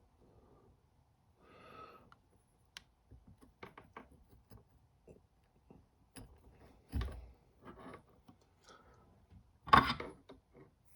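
Handling noises of small soldering tools and wires on a work surface: scattered light clicks and taps, a dull knock about seven seconds in and a louder clatter just before ten seconds.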